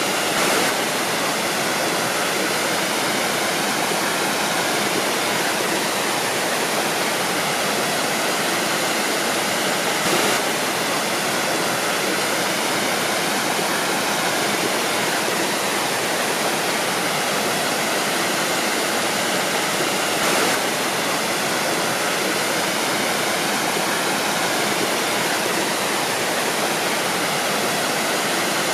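Waterfall: water pouring and splashing in a steady, full rush.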